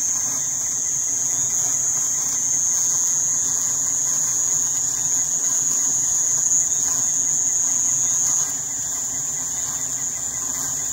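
Steady, high-pitched insect chorus, dipping a little in level about eight seconds in.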